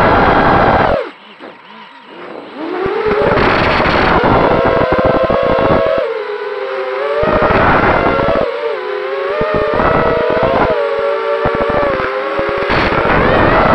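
Racing quadcopter's four brushless motors (Cobra 2205 2300 KV with three-blade 5040 props) whining, the pitch rising and falling as the throttle changes. About a second in the whine drops away sharply when the throttle is chopped, then it spools back up about three seconds in. The sound is picked up by the camera on the quad, with a rough low crackle under the whine.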